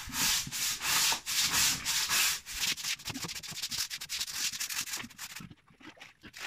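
Scraping strokes across the floor of a pig pen being cleaned: a few long strokes, then quicker short ones, with a brief pause near the end.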